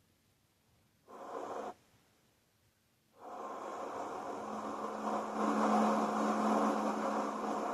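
A short rush of noise about a second in, then from about three seconds a small motor starts and runs steadily, a whirring hum over a rushing noise.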